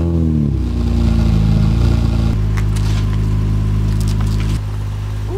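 Honda Accord 3.5-litre V6 with an aftermarket quad-tip exhaust, just started: its rev flare falls away in the first half second and it settles into a steady, loud idle. The level drops a little near the end.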